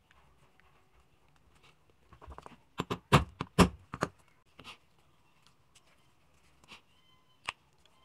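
A hammer striking a metal punch to punch a hole through a rubber sheet laid on a wooden block. There is a quick run of about five sharp knocks about three seconds in, with light handling rustles around them and one more click near the end.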